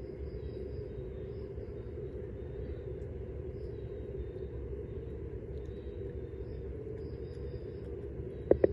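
Steady low outdoor rumble and hum, with faint high chirps recurring every second or so. A few sharp, louder knocks come right at the end.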